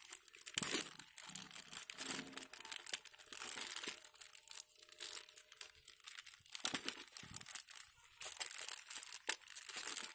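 Plastic packet of granular fertilizer crinkling and crackling in the hands as its sealed top is picked and torn at to open it.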